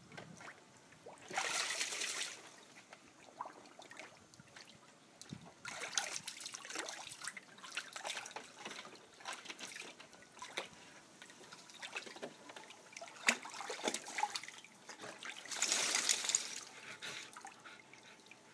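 Water splashing and sloshing in a plastic kiddie pool as a terrier paddles through it, with a garden hose trickling into the water. The splashing comes in irregular surges, the biggest about two seconds in and again around sixteen seconds in.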